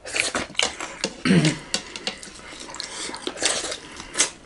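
Close-miked eating by hand: wet chewing and mouth clicks of soft cornmeal rice and potato, with light knocks of fingers and food against metal dishes.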